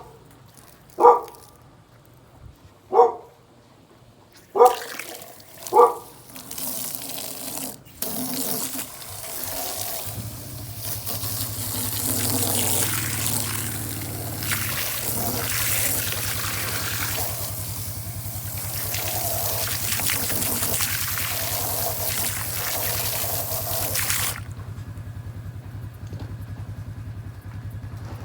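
A dog barks four times, then water gushes from a garden hose into a bucket for about eighteen seconds and cuts off suddenly; a low steady hum comes in partway through and continues.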